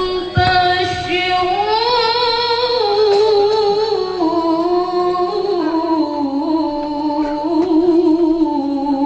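A woman's voice reciting the Quran in melodic tilawah style through a handheld microphone: one long phrase of held, ornamented notes that rises about two seconds in and then steps down in pitch.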